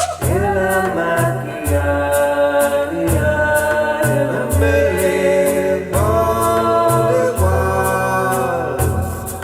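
Recorded song played through Dynaudio Confidence 30 loudspeakers: singing with long, wavering held notes over a repeating bass line and steady high percussion ticks.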